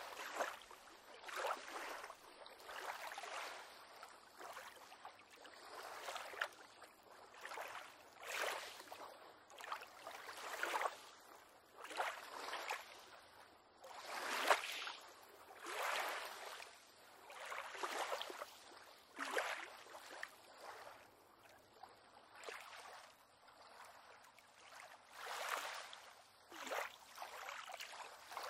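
Small waves lapping and slapping against a pier on calm water, a soft splash every one to two seconds, easing off for a few seconds past the middle before picking up again.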